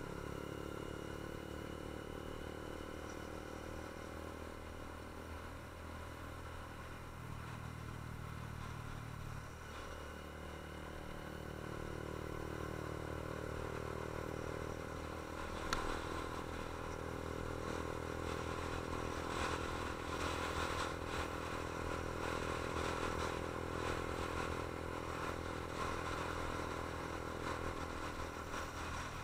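Motorcycle engine running steadily while riding, heard from on board the bike. The engine note drops and then picks up again about ten seconds in, and there is a brief click around sixteen seconds.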